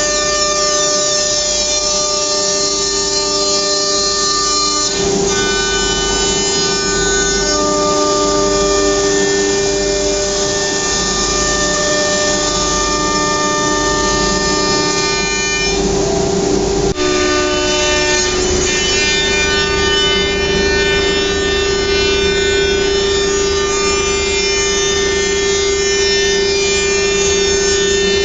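CNC router running: a steady spindle whine with several machine tones that shift in steps as the head moves, and a brief hiss about two-thirds of the way through.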